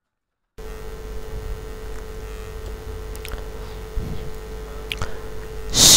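Pushcart rolling along a concrete alley: a low steady rumble with a steady hum and a few light clicks, starting about half a second in.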